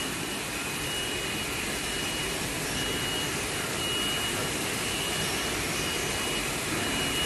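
Production-line machinery running with a steady hum and hiss, and a short high beep repeating about once a second.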